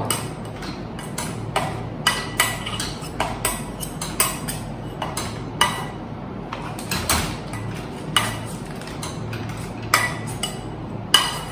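A wire whisk mashing boiled potatoes in a stainless steel saucepan, knocking and scraping against the pot in irregular metallic clinks, about one or two a second.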